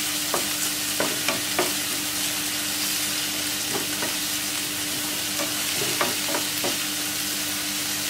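Chopped onions and ginger-garlic paste sizzling steadily in coconut oil in a nonstick pan. A wooden spatula stirs them, with irregular scrapes and taps against the pan.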